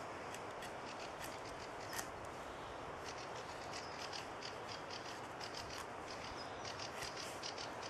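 Thin-bladed leuku shaving curls off a wooden stick while making a feather stick: a run of many short, crisp scrapes over a steady outdoor hiss.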